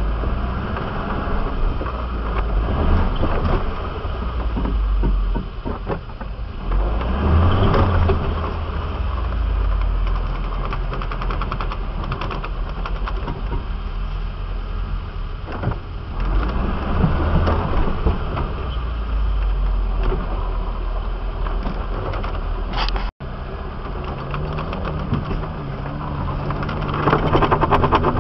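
Off-road 4x4 vehicle's engine running at low speed, rising and falling as it crawls over a rocky track, with frequent small clicks and rattles. The sound cuts out for a moment a little past two-thirds of the way through.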